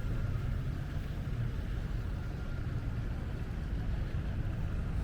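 Steady low rumble of an idling engine, even and unbroken.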